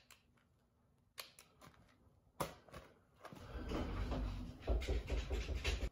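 A cordless hedge trimmer's trigger clicked a few times, about a second apart, with no motor starting: the battery is dead. In the second half a rough, low rumbling noise comes in and runs on.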